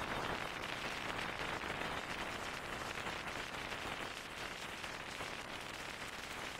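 Steady rush of wind and tyre noise through the open window of a moving car.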